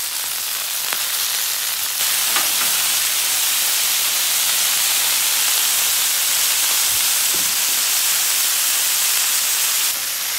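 Beef burger patties sizzling on a hot flat-top griddle, a steady hiss that gets louder about two seconds in and drops back near the end.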